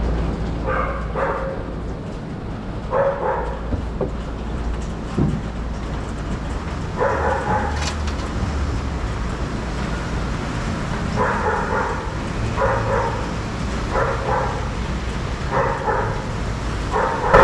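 A dog barking in short calls, often two at a time, every few seconds, over a steady low rumble.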